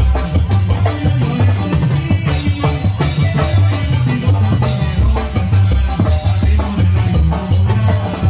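A live tamborazo band playing a cumbia: a drum-and-cymbal beat over a steady, repeating bass line, with brass and keyboard parts on top.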